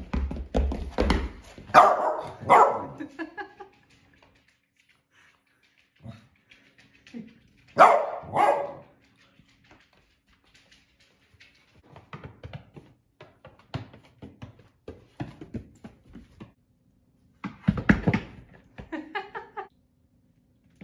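A dog barking in short pairs of barks, three times, between runs of light quick taps on a hard floor from a young goat kid's hooves as it plays.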